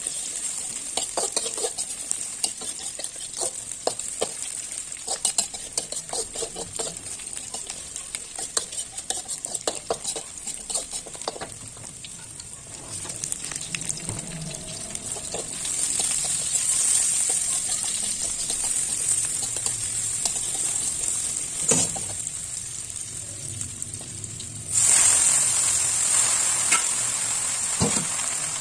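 Sliced shallots and garlic sizzling in hot oil in a metal wok, with a metal slotted spatula scraping and clicking against the pan as they are stirred. The sizzle grows louder in the second half and jumps suddenly louder about three-quarters of the way through, with two sharp knocks of the spatula on the wok.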